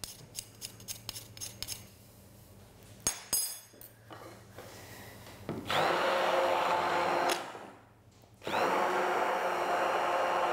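Bamix stick blender running with its blade submerged in a bowl of liquid glaze, emulsifying sieved titanium powder into it. It runs for about a second and a half starting about six seconds in, stops briefly, then runs again steadily from about eight and a half seconds. Before it, light quick taps of a small sieve of powder against the bowl.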